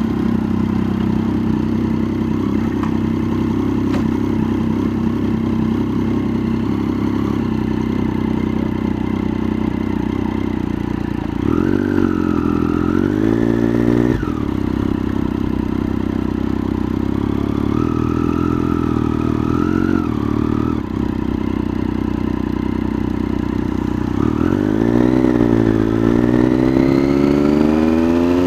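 Motorcycle engine idling steadily, then revved as the bike pulls away slowly, the engine note rising and falling a few times. Near the end it accelerates, the pitch climbing steadily.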